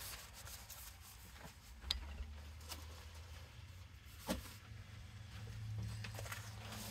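Faint handling of paper and cardstock on a tabletop, with two light taps about two and four seconds in.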